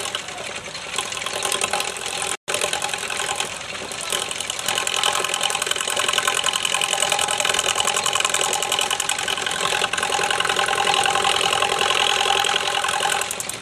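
Homemade wood lathe with a bicycle-rim pulley drive running under power: a steady mechanical whir with a rapid ticking rattle. The sound cuts out completely for an instant about two seconds in.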